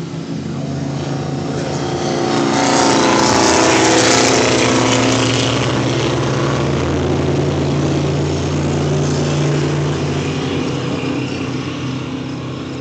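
Race car engines running: one car grows louder and passes close by a few seconds in, then fades with its pitch slowly dropping, over a steady engine hum.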